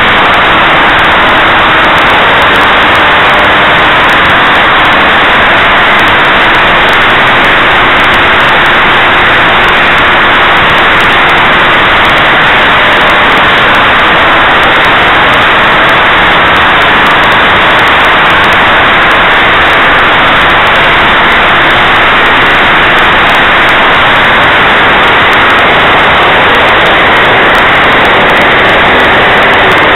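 Model aircraft's OS 49-PI Wankel rotary engine running at flying speed, heard through an onboard camera mic together with wind rush: a loud, steady, distorted noise with a faint steady engine note.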